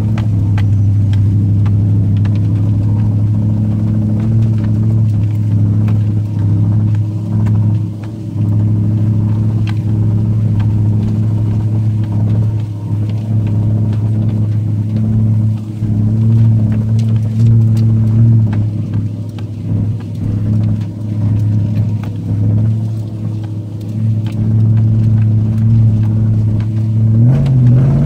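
Nissan Titan pickup's V8 engine heard from inside the cab at low speed on a muddy trail, the throttle swelling and easing off several times. Occasional light knocks and clicks sound over it.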